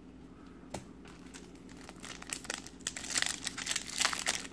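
A red foil trading-card pack wrapper crinkles as it is handled, from about two seconds in, growing busier from about three seconds. Before that there are only a few faint clicks of cards being handled.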